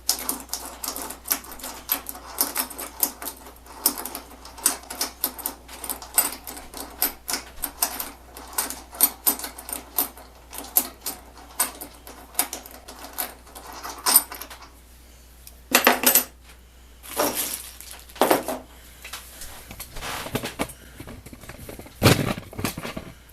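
Metal hardware and hand tools clicking and clinking: a long run of quick, sharp metallic clicks, then several separate louder clatters and knocks in the second half.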